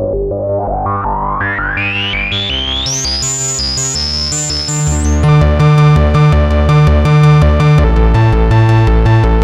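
Sequential Circuits Pro-One analog synthesizer playing a repeating bass-note pattern, with a bright tone climbing step by step over the first five seconds. The sound then turns louder and fuller.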